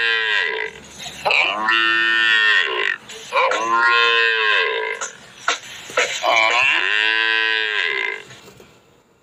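A young calf mooing loudly in long, drawn-out calls: one ends about half a second in, then three more follow, each about two seconds long, with the last trailing off about eight seconds in.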